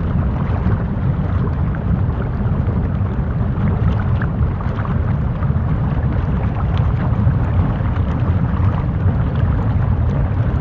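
Lava ambience: a steady low rumble with faint, scattered crackles and ticks over it.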